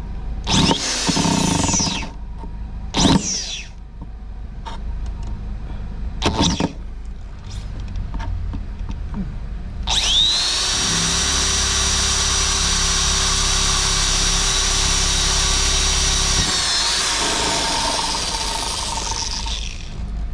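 Handheld Ryobi electric drill boring a pilot hole through the car's engine-bay panel. It gives three short bursts in the first few seconds, then runs for about nine seconds from about halfway with a steady high whine, which sags and winds down near the end.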